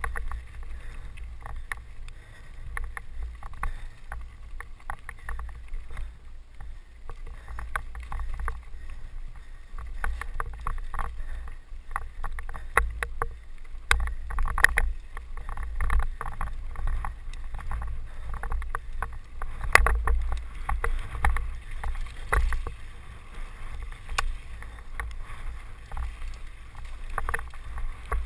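Mountain bike descending a rocky downhill trail, heard from a helmet-mounted camera: a steady low rumble with irregular rattles and knocks from the bike and camera jolting over stones.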